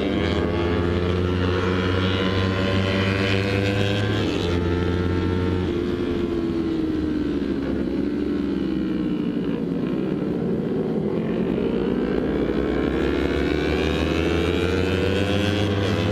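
Kawasaki Ninja 250 FI parallel-twin engine running under way, heard from the rider's seat. Its pitch falls through the middle as the throttle eases off, then climbs steadily again as the bike accelerates.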